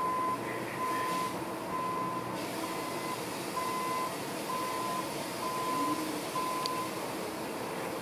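A vehicle's reversing alarm beeping, one steady high beep about every second, over a constant background hum; the beeping stops about seven seconds in.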